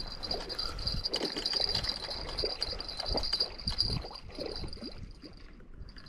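Lake water sloshing and trickling, with irregular splashes, over a steady high-pitched buzz of insects that drops out briefly near the end.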